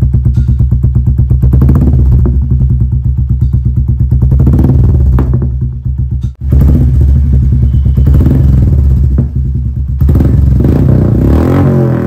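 Royal Enfield 350's single-cylinder engine running through a freshly fitted aftermarket Canon free-flow exhaust: idling with a fast, even beat of exhaust pulses, then revved up and held at higher revs for several seconds. The sound cuts out for an instant about six seconds in.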